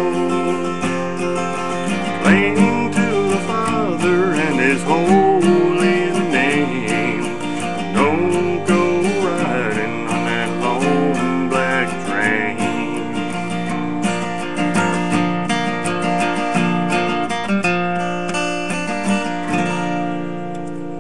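Country song's instrumental ending on strummed acoustic guitar, fading out near the end.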